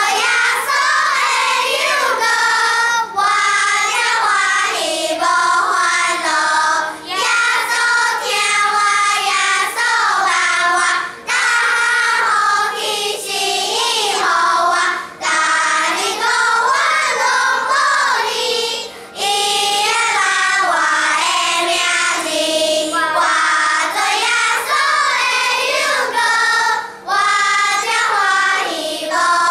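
Children's choir singing a hymn in Taiwanese, in sung phrases a few seconds long with short breaks for breath between them.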